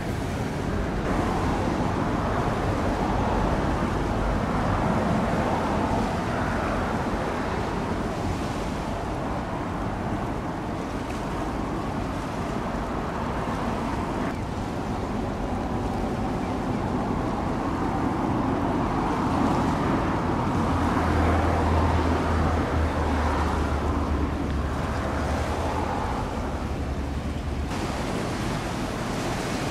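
Steady wash of waves at a rocky shoreline with wind rumbling on the microphone; the low wind rumble grows heavier in the second half and drops away sharply shortly before the end.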